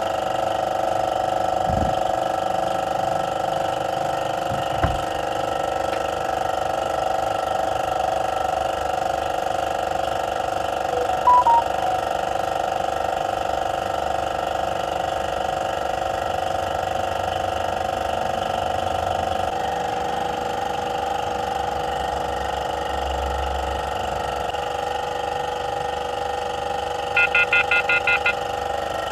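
A steady hum throughout, broken by electronic beeps: a few short ones about a third of the way in, and a quick run of about six near the end. The beeps are the touch tones of a handheld diagnostic scan tablet as its screen is tapped.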